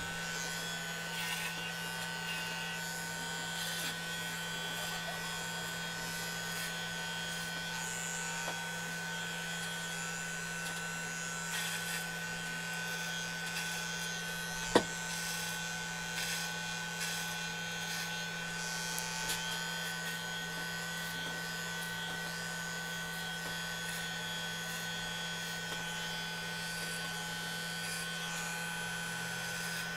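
Corded electric hair clippers running with a steady hum as they are moved over the scalp, shaving off hair. A single sharp click about halfway through.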